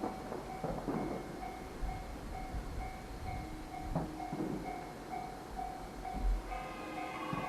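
Japanese railway level-crossing alarm ringing, a two-tone ding pulsing about twice a second, over irregular low thuds and rumble.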